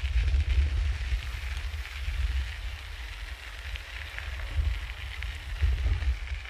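Wind buffeting the recorder's microphone while riding a bicycle: an uneven low rumble, with a light crackling hiss above it.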